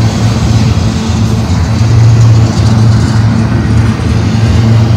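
Double-stack intermodal well cars rolling past close by: a steady rumble of steel wheels on the rail.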